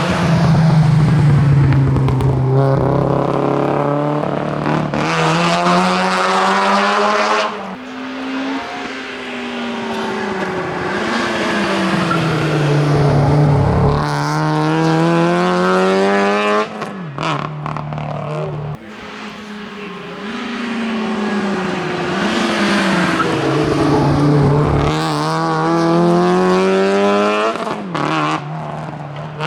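Rally car engine revved hard on a closed asphalt stage: its pitch climbs and drops sharply again and again as the driver shifts gear and lifts off, with brief dips in level around the middle.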